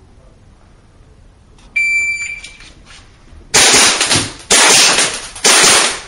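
Shot timer beeps once, and under two seconds later a pistol fires in three fast, very loud strings of shots that overload the recording.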